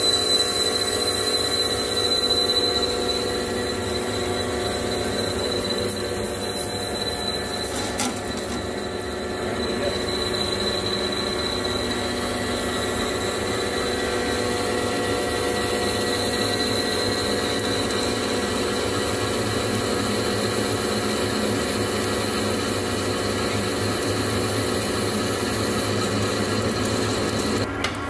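TM-26120G centre lathe turning a 4-inch induction-hardened chrome bar with a carbide insert under flood coolant, running steadily. A thin high whine from the cut comes and goes over the first fifteen seconds or so.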